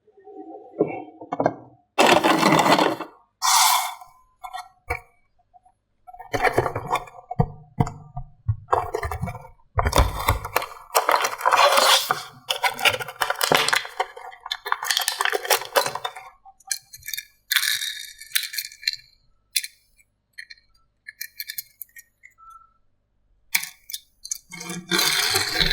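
Small hard toys handled and knocked together: diecast toy cars and plastic playset pieces clinking, rattling and scraping in irregular bursts, with a thump about ten seconds in and a quieter gap shortly before the end.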